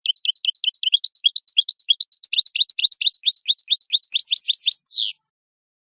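European goldfinch song: a rapid twittering run of short rising and falling notes, about eight a second. It ends about five seconds in with a longer downward-sliding note and stops abruptly.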